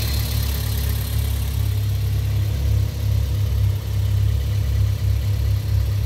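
Turbocharged Toyota 1NZ-FE 1.5-litre four-cylinder engine idling: a steady low rumble with an uneven pulse.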